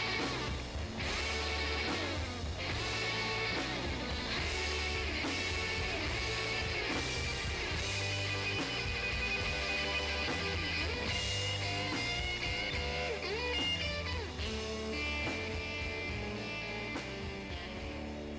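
Instrumental rock music led by electric guitar, with a steady beat.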